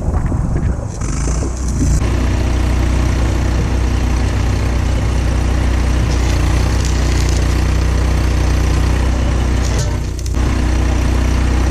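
Stick welding steel pipe bars onto a fence: a steady low welder hum with a dense crackle starts abruptly about two seconds in, breaks off briefly near the end, and picks up again.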